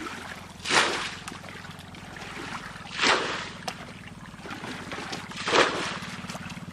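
Water swishing in three regular strokes about two and a half seconds apart, over a steady low hum.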